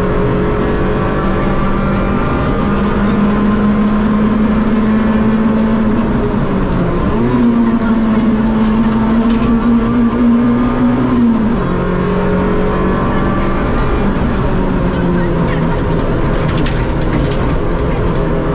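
Rally car engine running hard, heard from inside the cockpit. Its pitch holds high and steady, steps up a little about seven seconds in, and drops away about eleven and a half seconds in.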